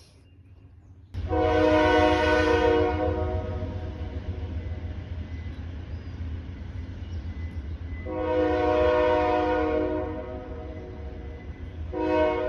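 Train air horn sounding a chord of several tones in three blasts. The first is long, starting about a second in; the second comes about seven seconds later; the third begins near the end. A steady low rumble runs beneath.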